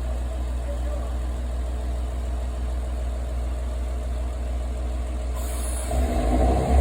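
Diesel railcar engine idling steadily at the platform. A hiss starts near the end, then the engine note grows louder and fuller as the train throttles up to depart.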